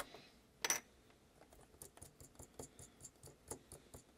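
Faint clicks and light taps of a small circuit board and drone-frame hardware being handled and lifted off the standoffs. One sharper click comes just under a second in, followed by a scatter of small ticks.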